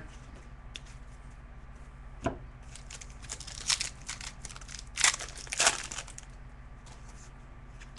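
Foil wrapper of a hockey card pack being torn open and crinkled in a few short bursts, with a light knock a couple of seconds in.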